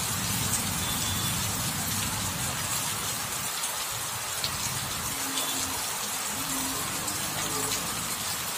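Heavy rain pouring onto a flooded road and pavement, a steady hiss of drops splashing into standing water. A low rumble sits under it for the first few seconds, then fades.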